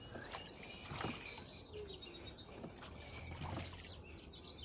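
Small birds chirping and calling over and over, with a few light knocks and a steady low hum underneath.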